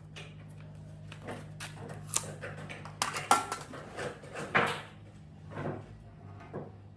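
Irregular knocks and clatter of wooden pieces and tools being handled in a woodworking shop, over a steady low hum.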